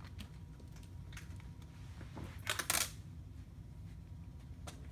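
A page of a picture book being turned: a few light clicks, then a short paper rustle about two and a half seconds in, over a low steady room hum.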